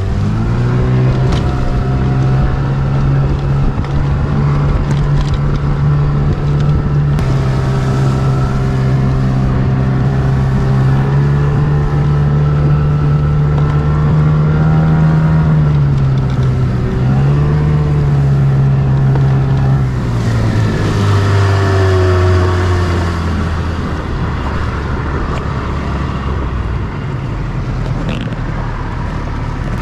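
Small boat's motor running at speed, with wind and water noise; its note wavers, then drops about two-thirds of the way through and again near the end as the boat slows.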